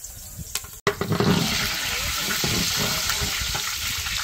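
Water pouring and splashing steadily. It starts abruptly about a second in, after a brief gap in the sound.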